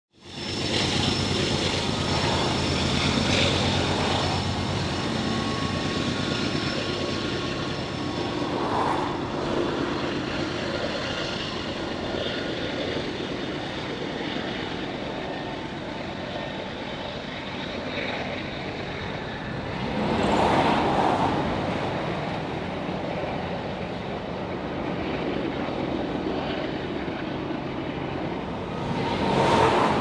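CP Rail mixed freight train rolling past: a steady rumble of steel wheels on rail from the autorack cars, swelling briefly three times as cars go by.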